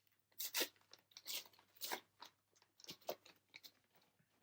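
Foil booster pack wrapper being crinkled and torn open, heard as a run of short, sharp crackles.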